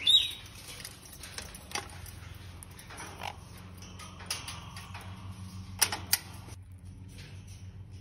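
Stainless steel food bowls and the wire cage knocking and clinking as the bowls are handled and set in place, with a short high squeak at the start, over a steady low hum.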